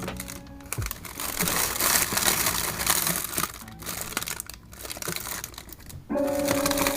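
Crinkling of packaging, such as plastic bags or wrappers, being handled in a close, rapid crackle. Soft background music comes back a little after six seconds.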